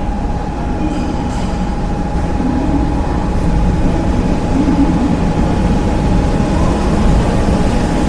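Train station ambience: the steady low rumble of a train, with a constant mid-pitched hum over it.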